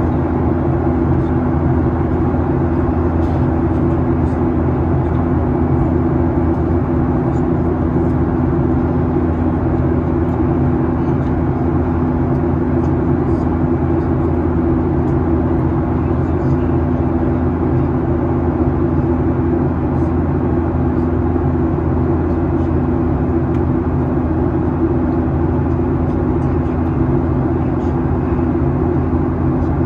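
Cabin noise inside a Boeing 737-800 in its climb: the CFM56-7B engines and the air rushing past the fuselage make a steady, unchanging drone with a low hum.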